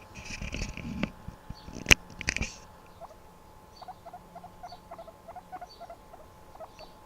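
Guinea pig making a run of short, quiet squeaks, about two or three a second, from about three seconds in. Before that there is rustling and handling noise, with a sharp knock about two seconds in that is the loudest sound.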